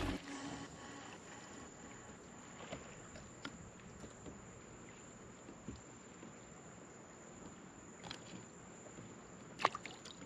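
Quiet night ambience with a thin, steady high-pitched insect drone, and faint scattered knocks and ticks of the catch being handled in a kayak; one sharp click near the end is the loudest sound.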